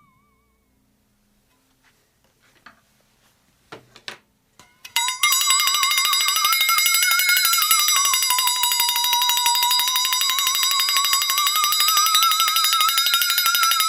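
A few faint clicks, then about five seconds in a loud buzzing tone starts and holds, its pitch slowly drifting up and down.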